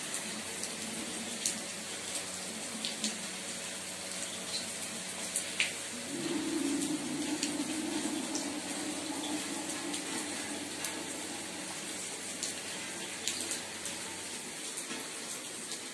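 Rainwater running and trickling, with scattered sharp drip ticks; the water sound grows louder for a stretch from about six seconds in.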